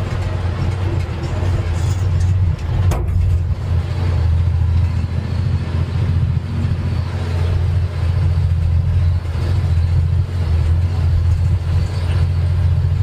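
Dodge M37 military truck's engine and drivetrain droning steadily while driving, heard from inside the cab, with a single knock about three seconds in.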